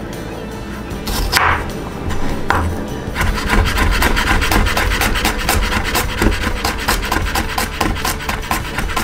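A chef's knife mincing garlic on a wooden cutting board: a few separate cuts and a scrape, then from about three seconds in fast, steady chopping at several strikes a second.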